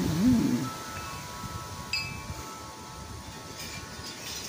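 Wind chimes ringing in the wind: several long, lingering tones, with a fresh strike about two seconds in.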